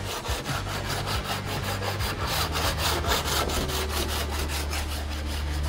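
A panel beater's body file rasping across the steel door skin of a 1972 Holden Torana in quick, even back-and-forth strokes, several a second. This is file finishing: cutting down the high spots so that the low spots show up under the soot guide coat.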